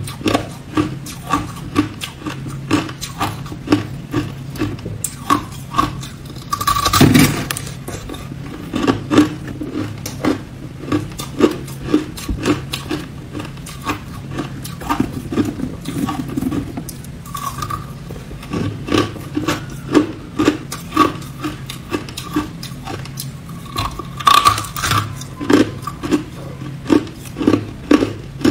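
Hard ice being crunched between the teeth close to the microphone: a steady run of sharp crunches about two a second, with a longer, louder crackling bite about seven seconds in and again near the end.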